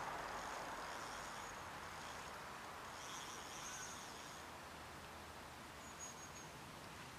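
Faint lakeside ambience: a steady low hiss that eases off over the first few seconds, with faint high chirping about three seconds in and again briefly near the end.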